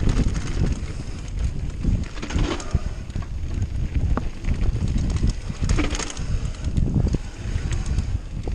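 Mountain bike descending a rough dirt trail: wind buffeting the microphone, the tyres rumbling on dirt, and rattles and knocks from the bike over bumps.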